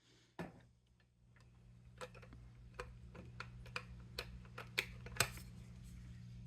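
Sharp, irregular plastic clicks and taps, about a dozen, as the refrigerator water dispenser's paddle is worked loose from its housing, over a steady low hum.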